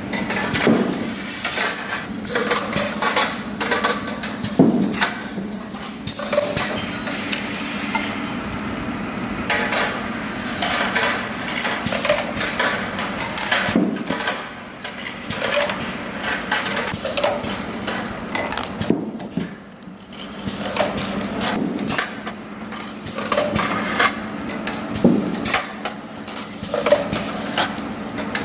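Automated parts-sorting machine running: a steady machine hum with frequent irregular knocks and clatter, a few per second.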